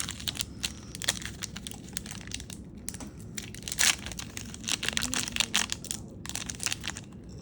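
Cardboard trading cards being handled and flipped through: a run of short rustles and clicks, the loudest about four seconds in.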